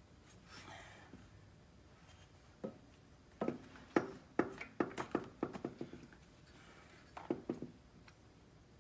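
Hands brushing and patting a bare Porsche engine crankcase, making a quick run of sharp taps and knocks on the metal a third of the way in and a few more near the end.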